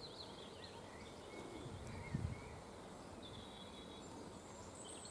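Faint birdsong: scattered chirps and short whistled notes from birds over quiet outdoor background noise, with a soft low thump about two seconds in.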